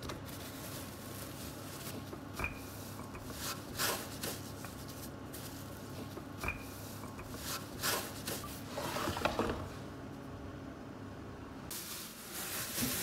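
Plastic sheeting rustling and crinkling in short bursts as it is pressed and folded over a slab of dough, over a steady low hum.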